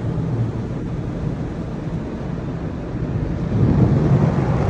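Automatic car wash heard from inside the car: a steady rush of water spray and machine rumble against the body and glass. It swells about three and a half seconds in as the cloth brush strips slap onto the windshield.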